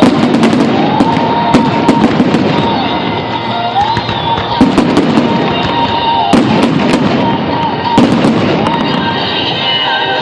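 Fireworks bursting, with many sharp bangs and crackles in quick, irregular succession, over music playing.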